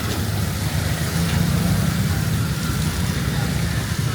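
Steady low rumble of motor traffic under the even hiss of heavy rain.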